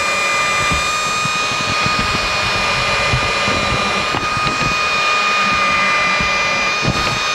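Cordless drill motor running steadily with a constant whine, driving a thread-cutting tap into an aluminum plate, with irregular low knocks underneath.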